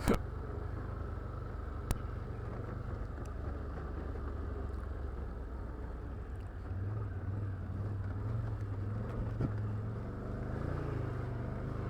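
ATV engine running steadily at low speed, a low hum that picks up a little about seven seconds in. A sharp click at the start and another about two seconds in.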